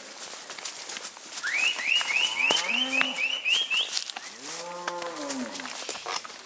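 Cattle mooing, a shorter call and then a longer one, amid many sharp cracks and snaps of brush and branches as the herd pushes through thick brush. Near the middle comes a quick run of about eight high, rising whistled chirps.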